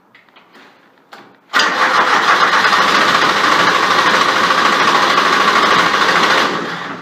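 Electric starter cranking the Grasshopper 721D mower's cold diesel engine for about five seconds without it catching, after a few light clicks.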